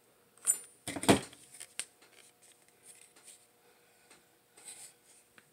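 Hands handling a nitro RC truck: a cluster of knocks and rustles from about half a second to just past a second in, then scattered lighter clicks and rustles.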